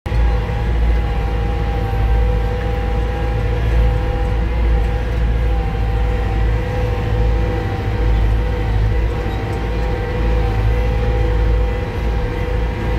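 Tractor engine running steadily under way, heard from inside the cab: a deep rumble with a steady whine over it.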